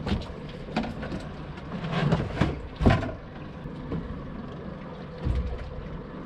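A handful of irregular knocks and thumps on a small boat, loudest about three seconds in, from handling and measuring a freshly caught spotted sea trout, over a steady low background.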